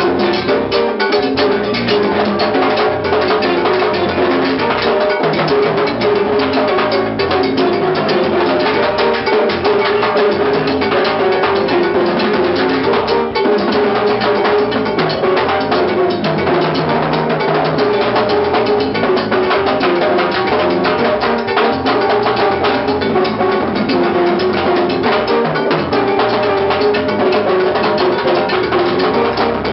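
Salsa band playing, with drums and percussion to the fore, at a steady loud level without a break.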